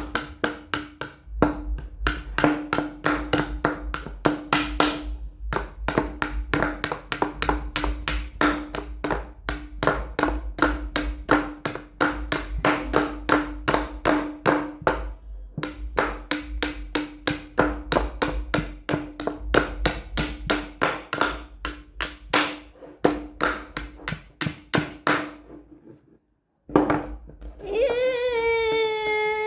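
Small hammer tapping rapidly and repeatedly, several taps a second, each tap ringing briefly, with a few short pauses. Near the end it stops and a held, slowly falling pitched tone follows.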